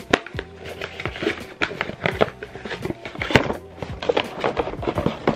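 Eyeglasses packaging being handled: a string of irregular clicks, taps and rustles as a cardboard box is opened and a soft pouch is pulled out, over quiet background music.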